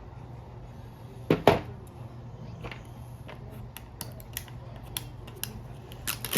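Small clicks and taps of a smartphone's parts and tools being handled during disassembly, with two louder knocks in quick succession about a second and a half in.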